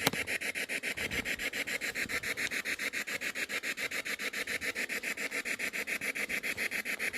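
Ghost-hunting spirit-box app playing white-noise static chopped into rapid, perfectly even pulses, about ten a second. A single sharp click right at the start.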